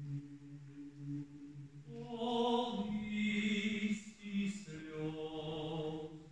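Mixed choir singing slow, sustained chords: low men's voices hold soft notes, then higher women's voices come in about two seconds in and hold long notes above them.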